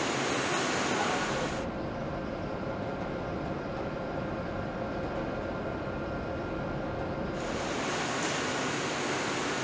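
Steady factory-floor ambience: a continuous rush of ventilation and machinery noise. It turns duller, with faint steady hums, from about a second and a half in until near the end.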